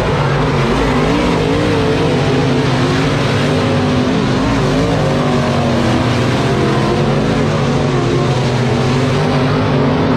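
Dirt late model race cars' V8 engines running hard at race pace, their pitch rising and falling as the throttle comes on and off through the corners.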